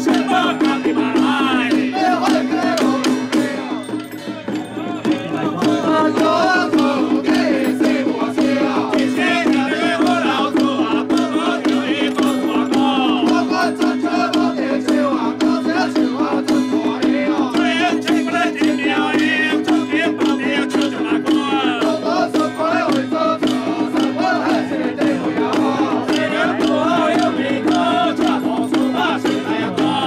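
Traditional temple-ceremony music: high, wavering melody lines over a steady low drone, with a dense continuous rattle. The sound dips briefly about four seconds in.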